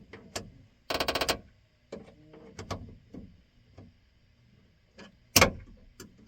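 Clicks and knocks from the newly replaced door latch on a 1997 Ford F-250 as it is worked in a test. A quick rattling run of clicks comes about a second in, and one sharp, loud bang comes near the end.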